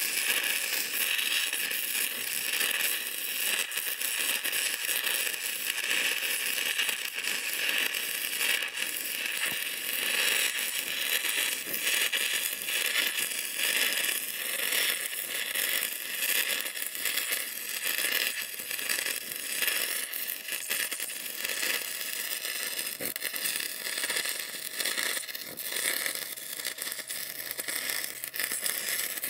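Stick (shielded metal arc) welding: the electrode's arc crackling and sizzling steadily as a bead is run on steel.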